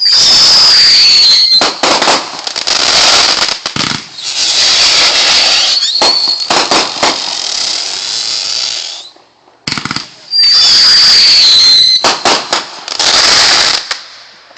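Fireworks going off: long, loud spells of hissing shot through with sharp crackling pops. Twice a high whistle falls in pitch, near the start and again about ten seconds in, with a short lull just before the second.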